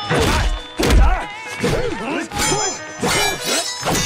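Sword blades clashing in a fight sequence: about five metallic clangs with a ringing after each, and grunts from the fighters between the strikes.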